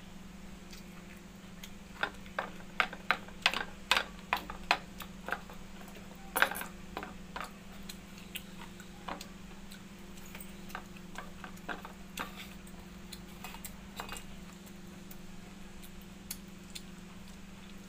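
Eating by hand from steel plates: sharp, irregular clicks and taps. A quick cluster of them comes a couple of seconds in, then sparser, softer ones, over a steady low hum.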